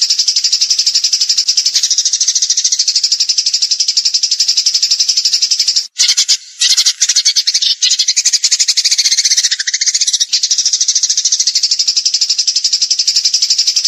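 Small songbird's rapid, high-pitched rattling trill of fast repeated notes, the 'tembakan' (rapid-fire) song style used in masteran recordings to train cage birds. The trill breaks off briefly about six seconds in, shifts pattern, and then runs on again.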